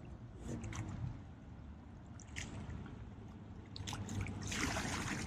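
Paddles dipping into river water beside an inflatable raft, with a faint wash of water and a few light clicks, then a louder paddle splash near the end.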